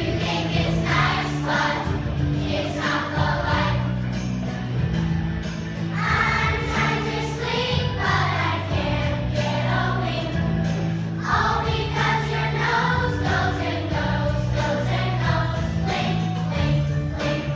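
A children's choir of second graders singing a winter song together over an instrumental accompaniment with jingle bells.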